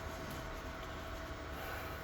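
Electric fan running steadily: a low hum and an even hiss with a faint steady tone.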